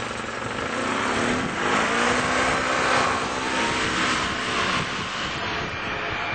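2001 EZGO Workhorse utility cart's engine running under way: the engine note rises as the cart picks up speed about a second and a half in, holds steady, then drops near the end.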